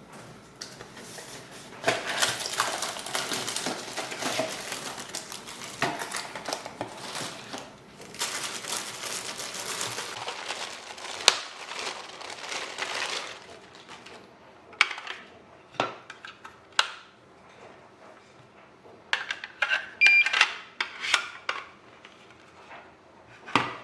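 WisuAlarm SA30A smoke alarms being handled: several seconds of rustling and clattering plastic, then a series of separate sharp clicks and knocks. A brief high beep sounds about twenty seconds in.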